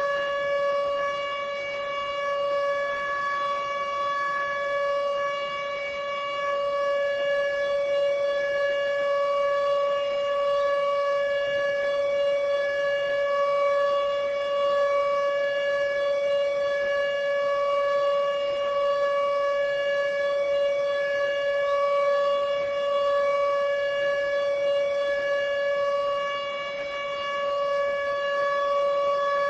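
Warning siren holding one steady tone, its pitch neither rising nor falling.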